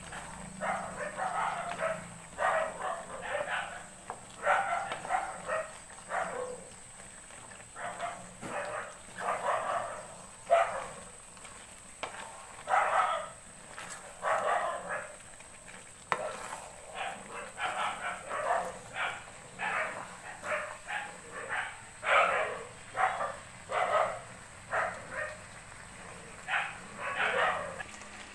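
Flat spatula stirring and scraping a thick vegetable curry in a metal kadai: repeated short scrapes, about one or two a second, over a faint sizzle.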